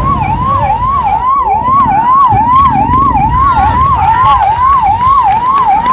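Emergency vehicle siren in a fast yelp, its pitch rising and falling about twice a second, loud and steady, over a low background noise.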